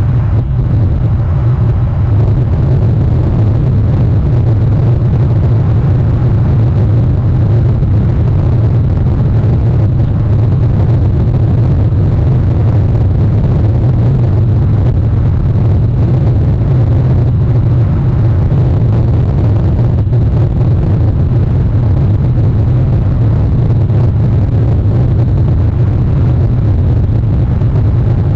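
Steady, even low rumbling noise with no distinct calls or events in it, as picked up by an outdoor webcam microphone.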